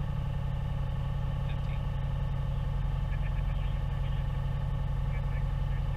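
1998 Subaru Impreza 2.5 RS rally car's 2.5-litre flat-four engine idling steadily, with no revving.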